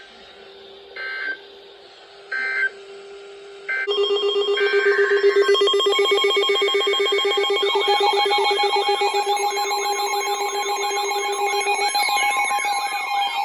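Electronic warning alert tones: a few short beeps about every second and a bit. From about four seconds in, a loud ringing alarm takes over, joined by a fast warbling, siren-like tone.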